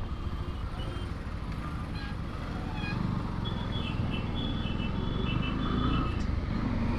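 Motorcycle on the move: a steady low rumble of engine and road noise that grows somewhat louder about three seconds in. Faint, broken high tones sound over it midway.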